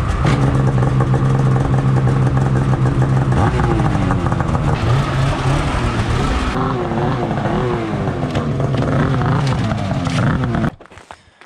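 Polaris RMK KHAOS snowmobile's two-stroke engine running loudly, first at a steady note, then revving up and down from about three seconds in. It stops abruptly near the end.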